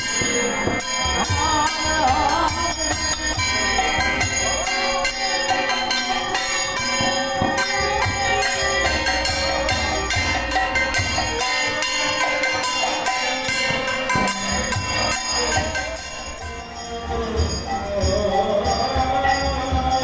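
Hindu devotional kirtan music: fast, steady jingling of hand cymbals over a drum and a wavering melodic line. It drops briefly in loudness about sixteen seconds in.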